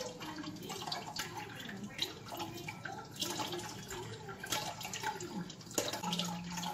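Blended rice liquid trickling and dripping through a plastic strainer into a stainless steel pot, with short scrapes of a spoon working the rice pulp in the strainer.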